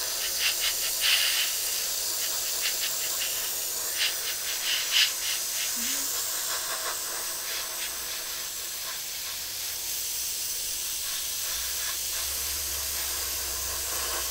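Airbrush hissing steadily as it sprays paint onto a plastic model hull, the spray flickering briefly a few times in the first five seconds.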